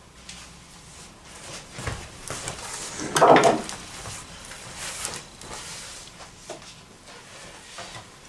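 Wooden grand-piano damper parts being handled and knocked together, a scatter of light clicks with one louder clatter about three seconds in.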